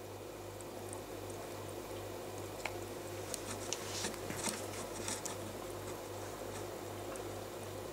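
Aquarium filter or pump running with a steady low hum and faint watery hiss, with a scatter of small ticks and crackles between about three and five seconds in.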